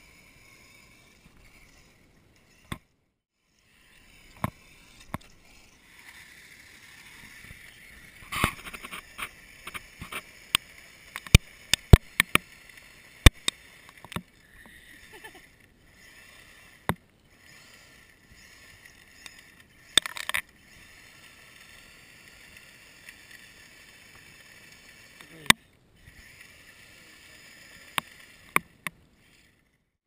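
Radio-controlled truck's motor whining in stretches, cutting out and starting again as it climbs a gravel pile. Many sharp clicks and knocks are scattered through it, thickest near the middle.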